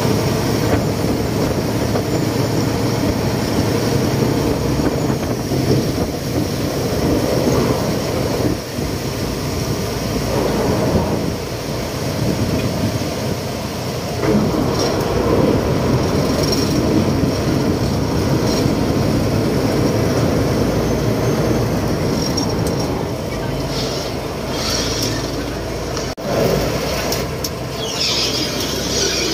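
Khlong Saen Saep canal express boat's diesel engine running, a loud steady rumble with a few brief dips.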